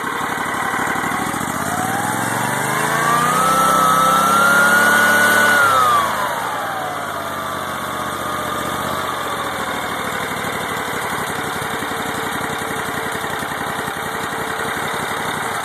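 Small engine driving a CVT belt-pulley drive on a test stand, revved up over a few seconds and held briefly, then dropping back sharply about six seconds in to a steady idle.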